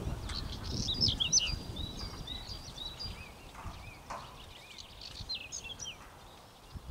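Small birds chirping and singing: a string of short high whistled notes and quick falling glides. Low wind rumble on the microphone underneath, easing off after about two seconds.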